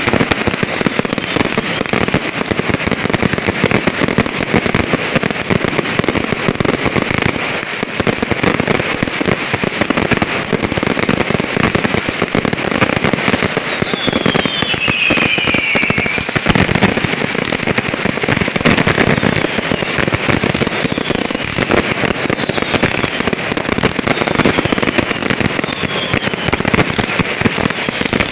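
Fireworks display going off in a dense, continuous barrage of crackling and popping bursts. A few whistles fall in pitch through it, the clearest about halfway through.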